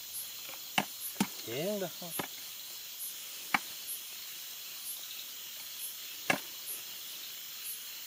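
Sharp chopping strikes, four or five of them at uneven intervals, over the steady, evenly repeated chirping of night insects such as crickets. A short hummed voice sound comes about a second and a half in.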